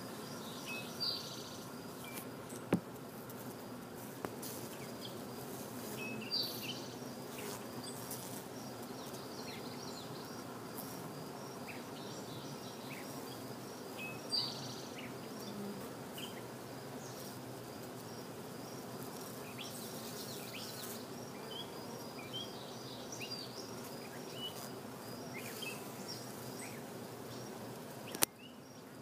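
Honey bees humming steadily at an open hive, a low, even drone of many wings. A few short high chirps sound over it, and there is a sharp click near the end.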